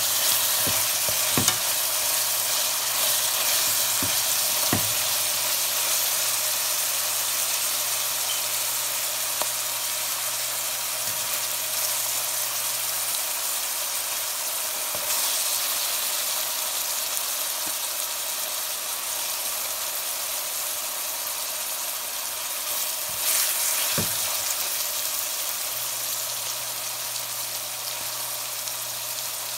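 Chopped onions and garlic sizzling steadily in hot oil in a metal pan, stirred with a spatula that knocks against the pan a few times.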